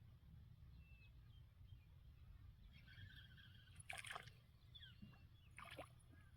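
Near silence with faint water sloshing, and a few small splashes about four seconds in and again near the end.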